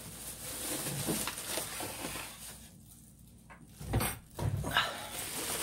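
Plastic shopping bags rustling as they are rummaged through, with two dull thumps about four seconds in.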